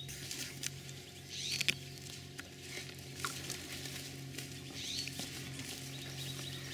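Footsteps and rustling as hunters walk through grass carrying a dead wild turkey, with a few faint high bird-like chirps and a steady low hum behind.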